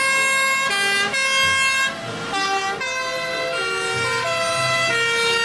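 Two-tone emergency horns of a column of German-style fire engines, several high-low horns sounding at once out of step, each jumping between two fixed pitches about twice a second.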